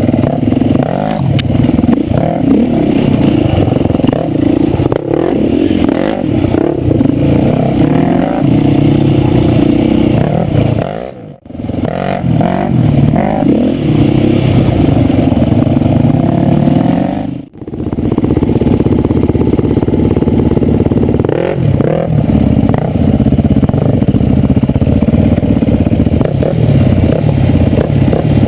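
Four-stroke single-cylinder enduro dirt bike engine under way on a trail, the revs rising and falling with throttle and gear changes, with some clatter. The sound drops out briefly twice, about 11 and 17 seconds in.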